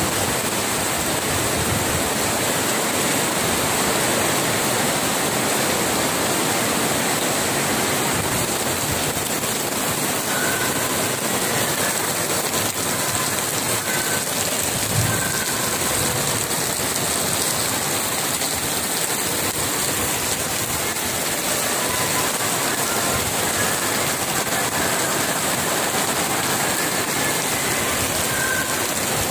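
Heavy rain pouring steadily onto wet paving and metal barricades, an even, unbroken hiss.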